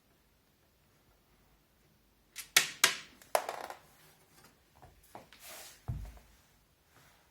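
Sharp clicks and knocks of hard parts being handled against a Zalman Z11 Neo computer case while a fan is fitted: three strong clicks a little after two seconds in, then lighter knocks, a brief rustle and a dull thump.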